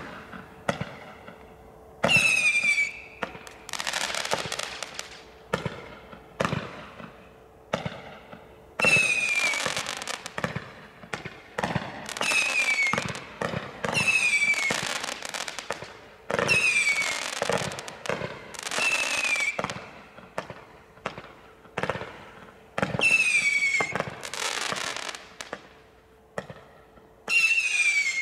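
Bright Star 2309 Penetrator 800-shot barrage cake firing rapid volleys: clusters of launch reports and crackling, with whistling shots whose pitch falls, coming about every one to two seconds.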